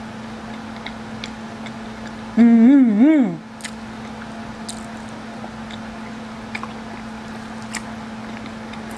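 Eating sounds of a person slurping up long pasta noodles and chewing, with small wet mouth clicks throughout. About two and a half seconds in, a short hummed "mm-mm" rises and falls in pitch, the loudest sound here. A steady low hum runs underneath.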